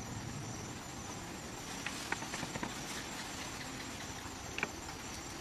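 Rustling of grass and brush as a man works with his hands close to the ground, with a few short sharp snaps or clicks around the middle of the clip and one more near the end, over a steady faint high hiss.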